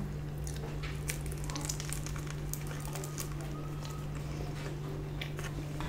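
Close-mic eating sounds: scattered soft crackles and clicks as a piece of toasted shawarma wrap is chewed and pulled apart by hand, over a steady low hum.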